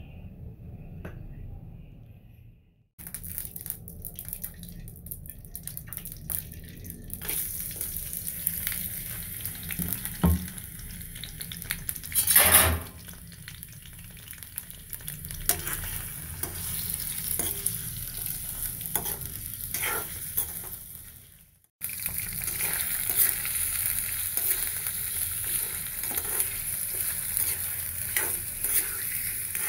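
Mutton pieces sizzling as they fry in hot oil in a metal karahi, with a brief loud surge of sizzling partway through. Near the end a spatula scrapes and clicks against the karahi as the meat is stirred.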